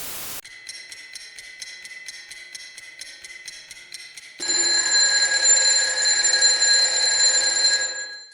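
Electronic transition sound: about four seconds of rapid, even ringing ticks, roughly five a second, over a high tone. A louder sustained high chord of steady tones follows for about four seconds and cuts off abruptly.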